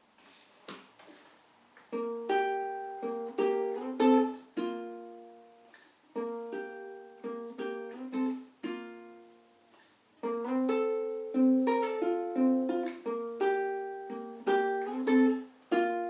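Low-G ukulele fingerpicked in a slow, simple pattern: single plucked notes ringing and decaying, in repeated phrases, after a couple of seconds of faint finger and string noise.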